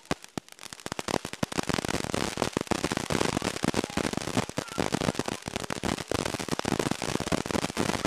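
Several ground fountain fireworks burning at once: a hiss of spraying sparks under many sharp crackling pops. It starts as scattered pops and thickens into a steady, dense crackle about a second and a half in.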